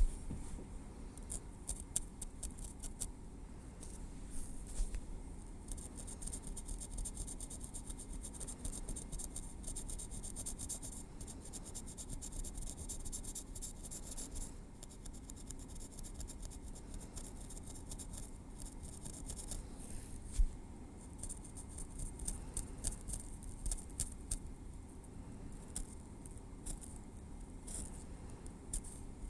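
Metal tweezers clicking and scratching close to the microphone in a dense, uneven stream of fine ticks, with brief pauses now and then.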